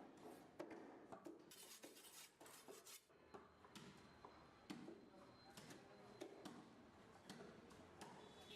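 Faint knife work on fish: scattered short knocks, with a stretch of scraping about a second and a half in.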